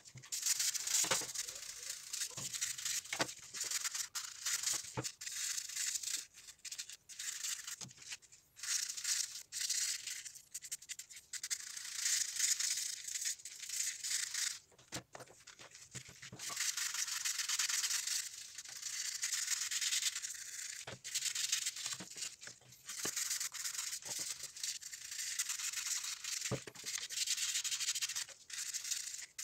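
Toothbrush bristles scrubbing a rusty steel wrench in a wet, foamy solution, in runs of quick back-and-forth strokes with short pauses between them. A few light knocks stand out here and there.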